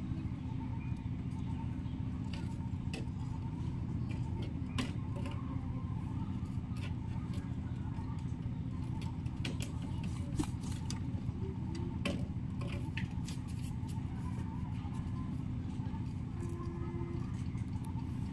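A steady low hum with scattered short clicks and ticks.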